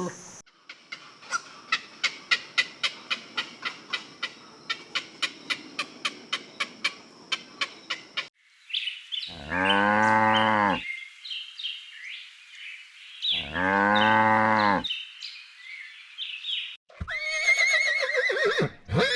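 A cow mooing twice, two long calls about four seconds apart, with birds chirping between them. Before the moos there is a steady, even ticking, about three ticks a second, over a faint high hiss. Near the end a quavering, whinny-like call begins.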